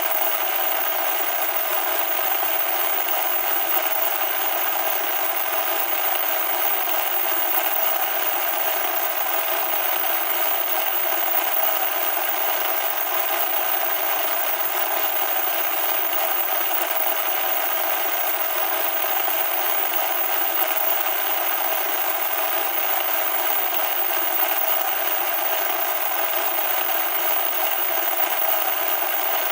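Loud, steady static noise: an even, harsh hiss with no bass.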